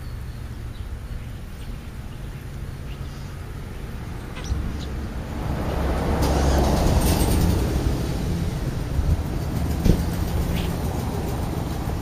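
Passing road traffic: a low rumble that swells about five seconds in and slowly fades, with one short sharp tap late on.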